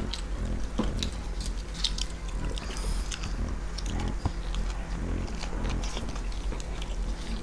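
Close-miked chewing and biting of egg rolls by two people, with wet lip smacks and mouth clicks coming irregularly.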